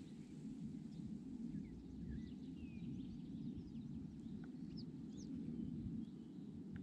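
Birds calling, a scattered series of short chirps and quick gliding notes, over a steady low rumble.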